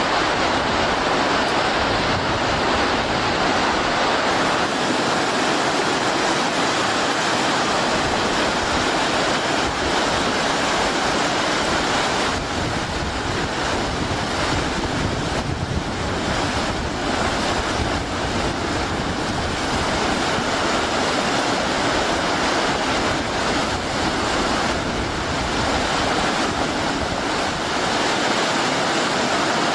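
A steady rushing noise, with wind buffeting the microphone.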